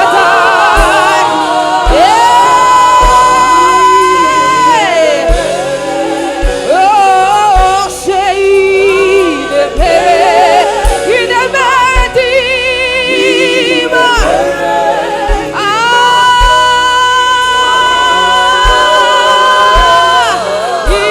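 Gospel worship song: sung voices over a band, with two long held notes with vibrato, one near the start and one in the second half, over a steady low drum beat of about one thump a second.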